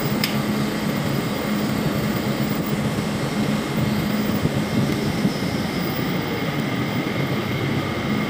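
Steady drone of shipboard machinery in the winch room: an even low hum with a few steady tones under a constant hiss.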